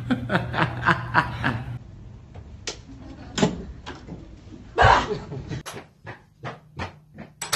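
A person laughing in quick bursts, followed by a few knocks and a loud thump, then a quick run of sharp clicks, about four a second.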